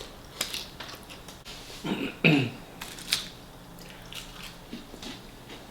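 Close eating sounds: crisp bites and chewing of fried food, with a short cough from the eater about two seconds in, the loudest sound.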